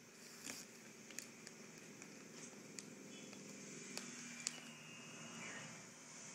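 Faint crinkling of a plastic Chex Mix bag as a hand rummages in it, with scattered small crunches and clicks of the snack being picked out and chewed. The sharpest click comes about four and a half seconds in.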